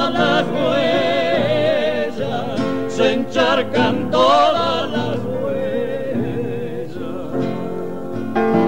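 Argentine folk tonada: two male voices singing together with vibrato over piano accompaniment. The voices fade out about two-thirds of the way through, leaving the piano playing on.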